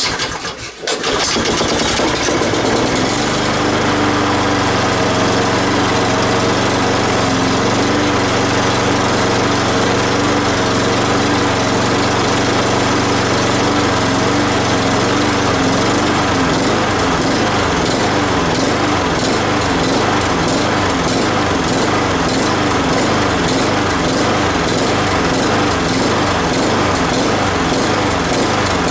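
Old Honda four-stroke lawn mower engine catching about a second in and running loud and steady. From about halfway it begins to pulse in a fast, regular beat. The owner takes the uneven running for a leaking gasket sucking in air, with the throttle stuck at full throttle and on choke because of a broken cable.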